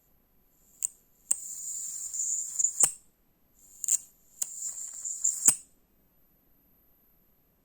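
High-voltage ion-wind device switched on twice: a high-pitched hissing whine lasts about a second and a half, then after a pause about one more second. Each run is marked by sharp clicks as the power is switched on and off.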